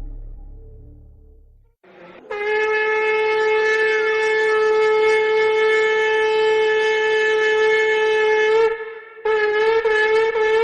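A ram's-horn shofar being blown: the last note fades out, then a long steady blast of about six seconds is held. After a short break, another blast starts with a wavering, broken-up tone near the end.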